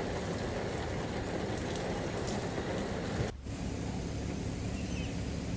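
Steady rain falling on a wet street. About three and a half seconds in it cuts to a different steady rush of wind with a faint low hum.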